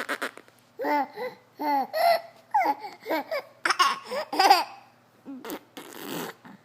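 A five-month-old baby vocalizing: a string of short laughing squeals and babbling with rising and falling pitch, then a few breathy noises near the end.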